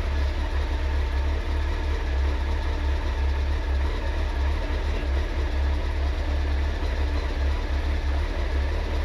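Honda CBR900RR Fireblade's inline-four engine idling steadily, with a tappy top end that is typical of these bikes.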